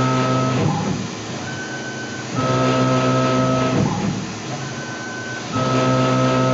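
Tormach PCNC 1100 CNC mill spot drilling aluminum parts in a fixture, hole after hole. Its drive motors hum in a repeating cycle about every three seconds: a louder, steady pitched drone of about a second and a half, then a quieter stretch with a higher tone, with brief sliding pitches between.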